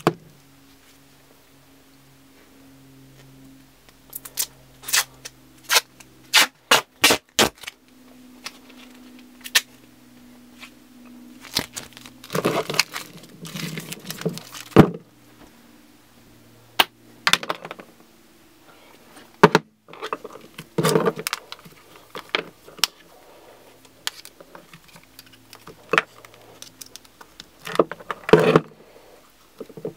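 Hands handling objects on a hard tabletop: scattered clicks, knocks and scrapes as things are picked up and set down, with short bursts of rustling about halfway through and again near the end, over a faint steady low hum.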